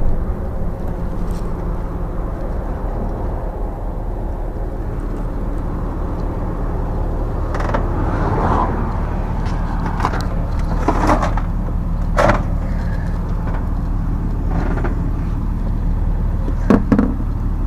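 A motor vehicle engine idling with a steady low hum. Several short knocks and rustles come in the middle and a sharp double knock near the end, from hands handling the SUV's body and interior.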